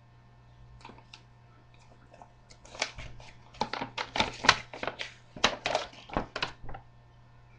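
Paper poster being unfolded and handled close to the microphone, giving a quick run of sharp crinkles and crackles from about three seconds in to near the end.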